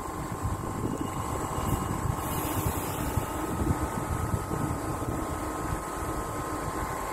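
DART electric commuter train running on the line beside the platform: a steady hum and rumble with faint steady tones from its electrical equipment.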